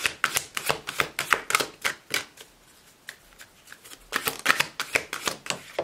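A deck of oracle cards being shuffled by hand: quick runs of crisp card-on-card clicks and slaps, about five a second, stopping for about two seconds in the middle and then starting again.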